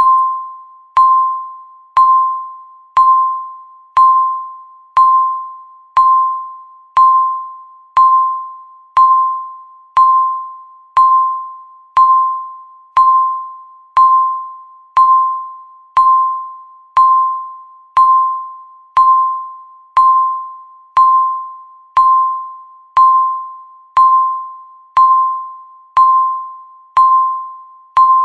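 Countdown timer beeping once a second: a single mid-pitched electronic chime tone that starts sharply and fades quickly, repeating at an even one-second pace.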